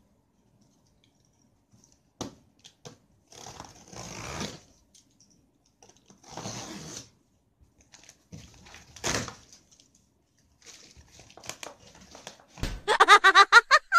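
Packing tape being torn and peeled off a cardboard box in several separate ripping strokes. Near the end comes a loud, rapid run of pitched calls, like an animal's.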